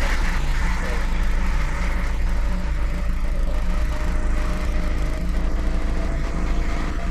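A steady low mechanical hum with a heavy rumble, like a small motor running, with faint steady tones above it.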